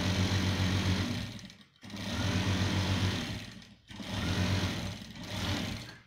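Sewing machine stitching a trouser-leg seam. It runs in three stretches of about two seconds each and stops briefly twice between them.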